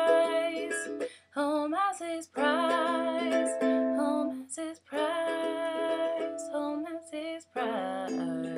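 Ukulele strummed in chords, with a woman singing long held notes with vibrato over it, the closing lines of a song.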